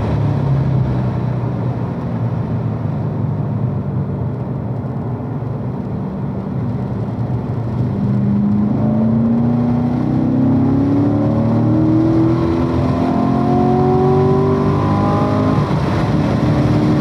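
2015 Corvette Stingray Z51's 6.2-litre LT1 V8, heard from inside the cabin. It runs steadily while the car slows into a corner, then pulls hard under full acceleration in third gear with the pitch rising. Near the end the note drops briefly at the upshift to fourth and then climbs again.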